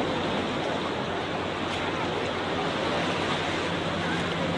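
Crowded beach ambience: sea waves washing on the shore under a steady babble of bathers' voices.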